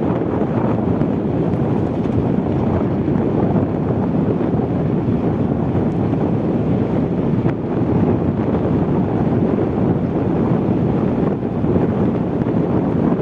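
Steady rush of wind buffeting the microphone over the rumble of a pickup truck driving at speed.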